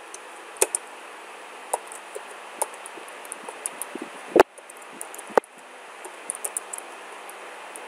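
Computer keyboard keys clicking in an irregular run of single keystrokes as a terminal command is typed, with one louder knock about halfway through, over a steady hiss.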